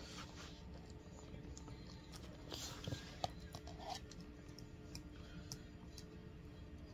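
Quiet room with a faint steady hum and a few small scattered clicks and ticks, plus a brief faint tone about four seconds in.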